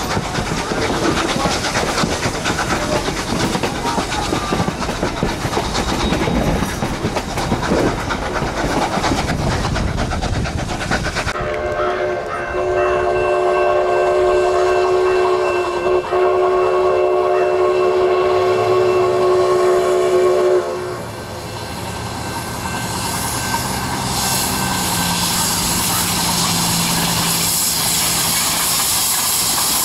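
A narrow-gauge passenger train heard from an open coach window: wheels clickety-clacking over the rail joints and wind rushing past. About eleven seconds in it cuts to trackside, where the steam whistle of K-36 locomotive No. 480 sounds one long chord of several tones for about nine seconds. The approaching locomotive's running noise then grows louder.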